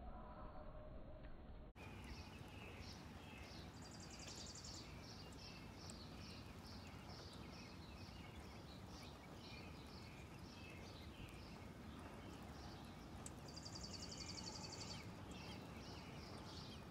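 Faint bird calls: a long run of short high chirps, a few a second, starting about two seconds in, with a brief buzzy trill about four seconds in and again near the end, over a low steady rumble.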